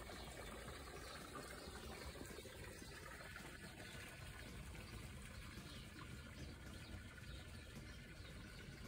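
Faint, steady outdoor background noise, an even hiss with no distinct events.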